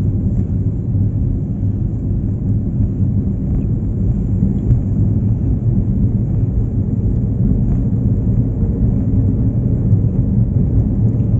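Steady low rumble of a vehicle driving on a concrete road: tyre, engine and wind noise with no clear pitch.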